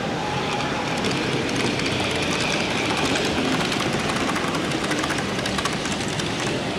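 Model electric train running along the layout track: a steady rolling hum with fine, rapid clicking from the wheels on the rails, over steady background noise.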